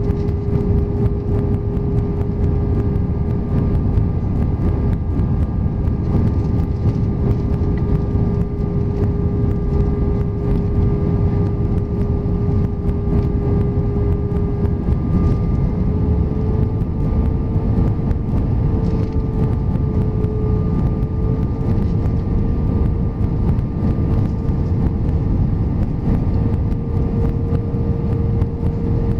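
Airbus A320 cabin noise on approach, heard from a window seat over the wing: a steady jet-engine drone over rushing airflow, its hum rising slightly in pitch a little past halfway.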